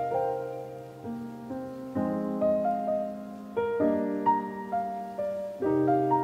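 Background piano music: gentle chords with a simple melody on top, each chord struck and left to fade, changing about every two seconds.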